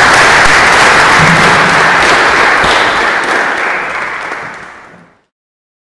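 Audience applauding, a dense patter of many hands clapping, fading away and cutting off about five seconds in.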